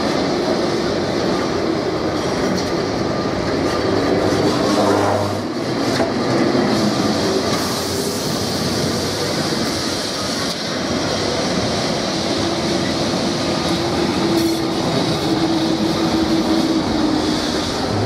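Carris heritage trams running on the street rails: a steady rumble and rattle of wheels on track, with a sustained whine in the second half.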